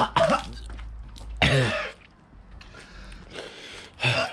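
A man coughing and clearing his throat in several short outbursts, the strongest about a second and a half in, as Carolina Reaper hot sauce burns his throat.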